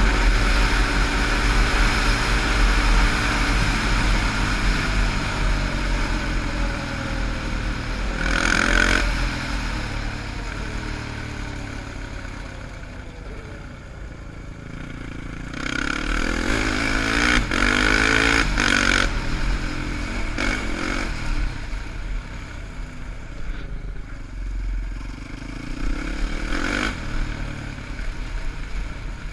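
Quad bike engine running under way, its revs rising and falling through the gears. It surges in hard acceleration about eight seconds in and again from about sixteen to nineteen seconds, and eases off in between.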